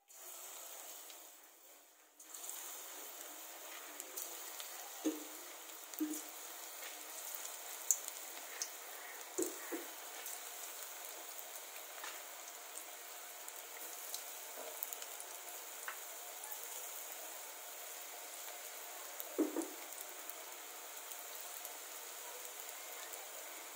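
Battered cauliflower pieces deep-frying in hot oil: a steady sizzle with a few sharper pops and crackles.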